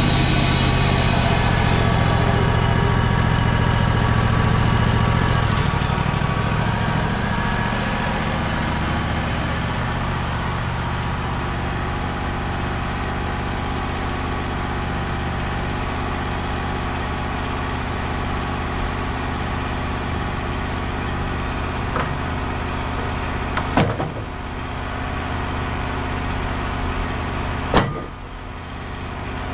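Sawmill engine running with the saw finishing a cut through a pine log in the first couple of seconds, then the engine idling steadily. Three sharp knocks come near the end.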